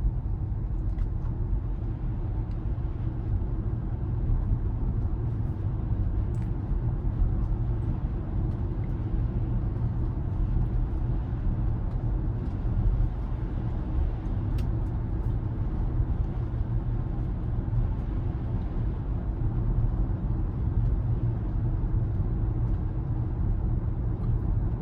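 Steady low tyre and road rumble inside the cabin of a Tesla Model Y electric car driving along.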